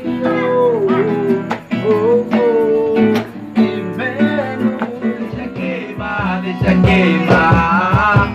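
Acoustic guitar strummed while a man sings a slow melody; from about five seconds in the strumming turns into strong, even strokes.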